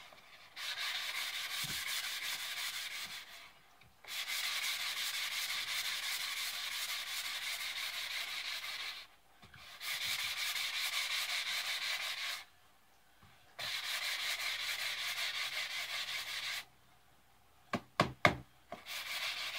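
Sanding sponge rubbed up and down a wooden axe handle, smoothing the raised wood fuzz left after the factory varnish was scraped off. It comes in four steady scratchy bouts with short pauses between, then a few sharp knocks near the end.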